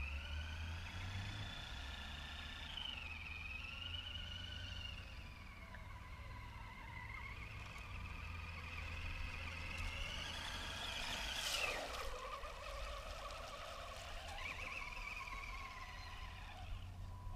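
Small brushed 370 electric motor and plastic gearbox of a 1/12 scale RC truck whining, the pitch rising and falling as the throttle is worked, with one short sharp noise about two-thirds of the way through. Wind rumbles on the microphone.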